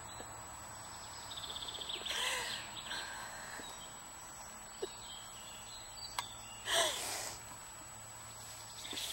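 A woman's breathy laughing gasps, two short bursts a few seconds apart, as she strains in and comes out of a yoga bow pose. Small birds trill faintly in the background.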